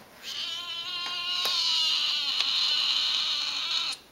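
Tonkinese cat giving one long, drawn-out meow of about three and a half seconds, which stops abruptly near the end.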